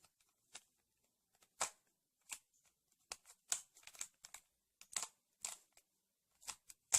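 Plastic Rubik's Cube layers being turned by hand in quick succession: a string of short, irregular clicks as the cube runs through an OLL algorithm.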